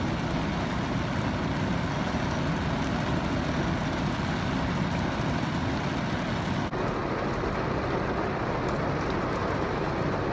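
Heavy rain on a vehicle, heard from inside the cabin as a steady rushing noise over a low engine and road rumble. About two-thirds of the way through it changes abruptly to a duller version of the same steady noise, with less hiss.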